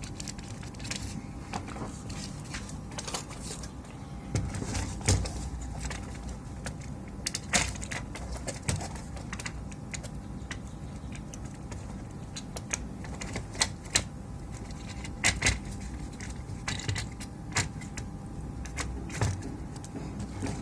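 Irregular clicks and taps of small hard parts being handled, over a steady low hum.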